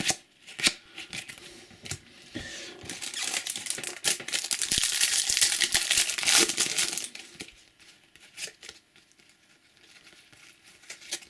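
Foil wrappers of Topps Match Attax trading-card packs crinkling and rustling for about five seconds, then dying down to light clicks and slides of cards being handled.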